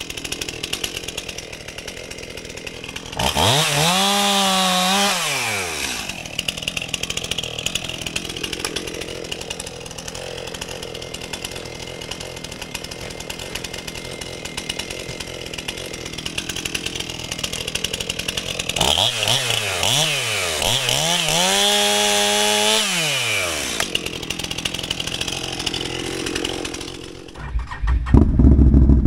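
Electric winch on an ATV log arch, run twice: each time the motor spins up to a steady whine for a couple of seconds, then winds down and stops. A louder low rumble starts near the end.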